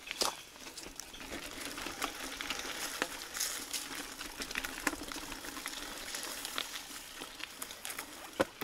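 Mountain bike rolling over a rough forest road: a steady rush of tyre noise with irregular small crackles and ticks from grit and stones under the tyres.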